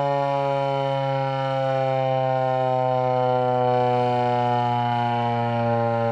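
ASC T-128 dual-tone outdoor warning siren sounding a steady full-alert chord, its tone slowly dropping in pitch.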